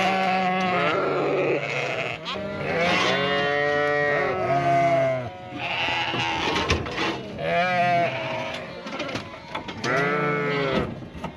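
A flock of ewes and lambs bleating loudly, many calls overlapping one after another: the ewes and lambs are calling for each other as they are separated at weaning.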